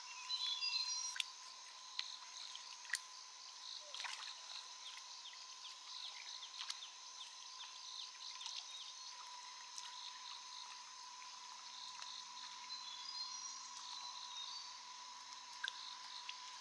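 Faint, steady chorus of insects and frogs in the countryside, with short chirping calls about half a second in and again near the end, and a few light clicks.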